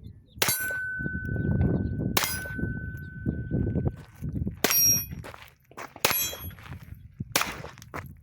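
Five pistol shots, spaced roughly one and a half to two and a half seconds apart, each followed by the clang of a hit steel target. After the first two hits the steel plate rings on with a steady tone for a couple of seconds.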